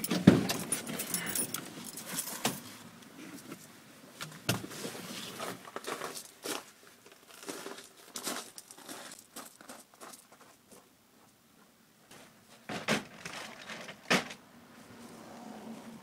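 Handling noise: jangling with scattered clicks and knocks, and a quiet pause about two-thirds of the way through.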